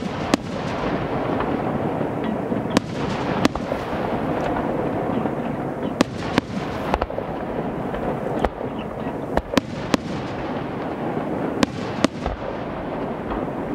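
Aerial firework shells bursting in a fireworks display: about a dozen sharp bangs at uneven intervals over a continuous noisy din.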